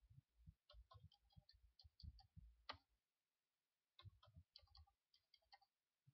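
Faint computer keyboard typing: two quick runs of keystrokes, each lasting a second or two, as figures are keyed into a spreadsheet-style form.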